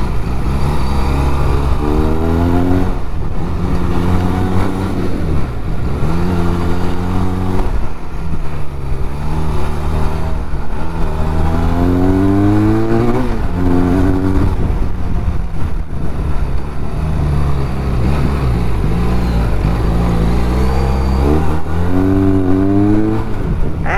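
Liquid-cooled parallel-twin motorcycle engine under way, its revs rising and then dropping back several times, as in accelerating up through the gears, over a steady low drone.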